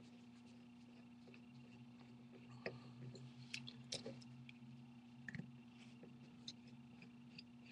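Faint, scattered small clicks of a pentalobe screwdriver working the two bottom screws out of an iPhone 4S, over a low steady hum.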